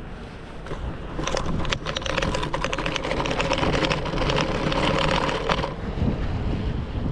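Scooter on the move with a dense, rapid clattering rattle and a steady whine, starting about a second in and stopping about six seconds in.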